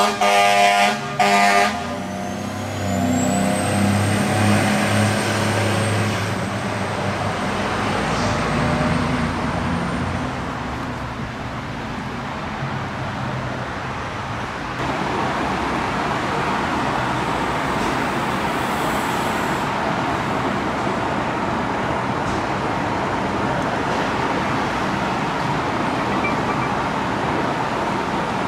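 Fire engine air horn blasting in short broken bursts as the Pierce Arrow XT pumper pulls out, giving way after about two seconds to its engine moving off under a faint rising whine. After that, steady even truck engine and traffic noise, a little louder from about halfway through.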